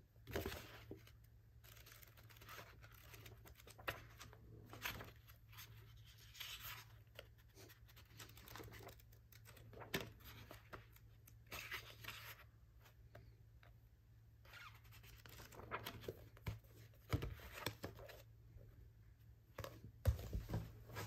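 Paper rustling and crinkling as a paperback manga volume and a folded paper insert are handled, in short irregular bursts. A few soft knocks near the end as books are handled on the desk.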